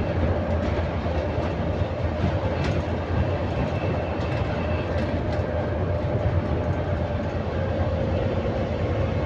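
An ADL Enviro400 MMC double-decker bus with a Voith automatic gearbox heard from inside while driving between stops: a steady low engine and drivetrain drone with road noise and light rattles, and a steady mid-pitched whine over it.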